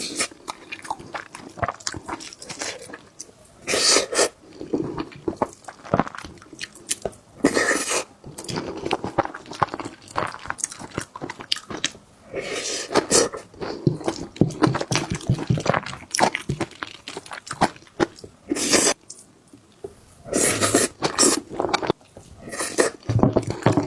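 Close-miked eating sounds: a person chewing and biting mouthfuls of a home-cooked rice meal, with irregular crunches and soft wet chewing sounds.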